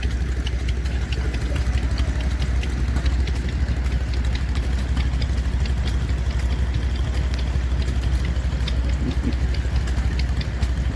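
A vintage stationary engine running steadily: an even low thrum with light ticking over it.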